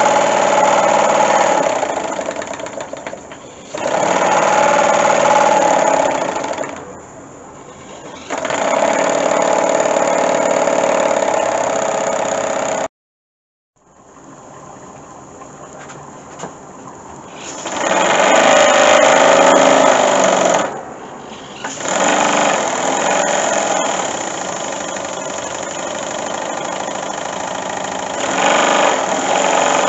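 Model two-cylinder oscillating steam engine (horizontally opposed, single-acting, 5 cc) running on steam from a propane-fired boiler, with a steady hiss of steam. The loudness rises and falls several times, with a sudden break about thirteen seconds in.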